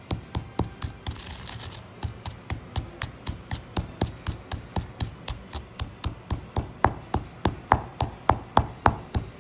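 Granite pestle pounding black and white peppercorns in a granite mortar, crushing them with a steady rhythm of about three strikes a second. The strikes grow louder in the last few seconds.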